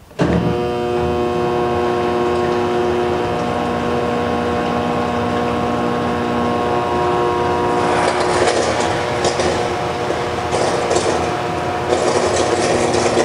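Portable DC metal disintegrator switched on: it starts abruptly into a loud, steady hum with several steady tones. From about eight seconds in, a rougher crackling buzz joins as the electrode arcs and erodes the cap of an aluminium rivet under the coolant splash bag.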